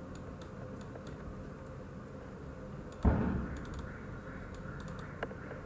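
Faint computer keyboard and mouse clicks, with one dull thump about three seconds in.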